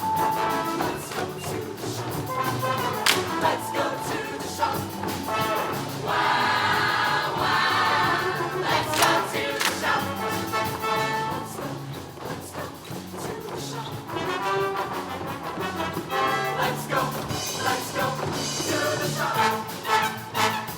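Show choir singing in full ensemble over a live pop-style band, with drum hits punctuating the music.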